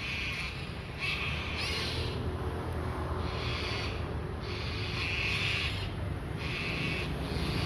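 Cockatoo giving a series of harsh, raspy screeches, roughly one a second, over a steady low rumble.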